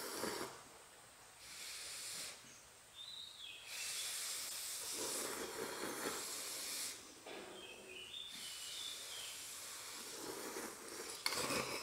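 Instant noodles being slurped from bowls by two people: a run of long, hissing sucking slurps with short pauses between them.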